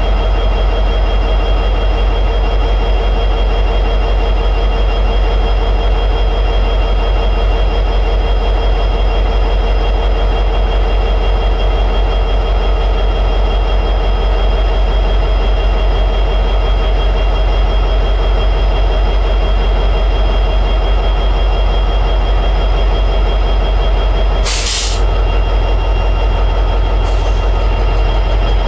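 EMD 16-710G3B two-stroke diesel prime mover of an SD60E locomotive running steadily in high idle. Near the end there is a short burst of hiss, and about two seconds later a fainter one.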